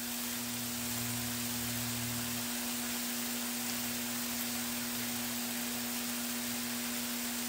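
Food frying with a steady, even sizzle, over a steady low hum.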